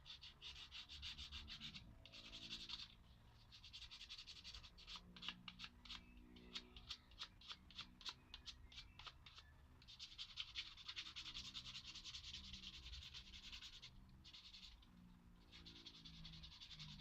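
Faint scraping strokes of a hand tool working wood, in sweeps of about a second each, with a run of quicker, shorter strokes in the middle.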